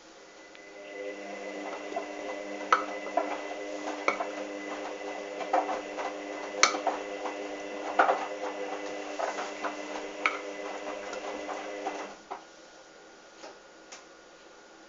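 Hoover washing machine running with a steady motor hum and irregular clicks and knocks for about eleven seconds, then stopping abruptly, followed by a couple of faint clicks near the end.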